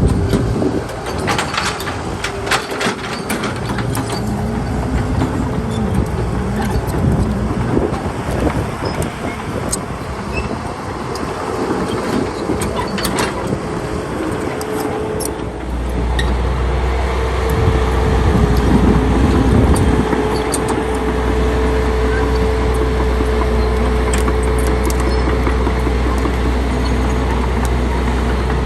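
Heavy diesel engine running steadily, with scattered clanks and knocks in the first few seconds; about halfway through, the low engine rumble gets louder and stays there, as if under more load.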